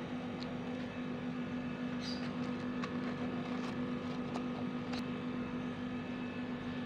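A steady low hum with a few faint clicks and small splashes as hard plastic toys are handled in a basin of water.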